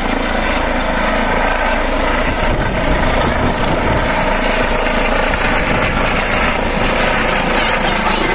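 Air ambulance helicopter flying low and close, its rotor and turbine engines making a loud, steady noise.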